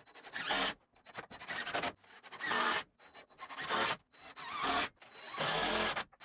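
Cordless driver running screws through wooden shelf braces into cedar wall studs, in a series of short bursts about one a second.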